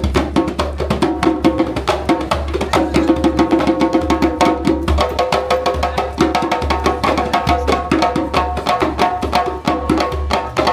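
Upbeat music with fast wood-block-like percussion over a steady bass line and held notes, starting abruptly.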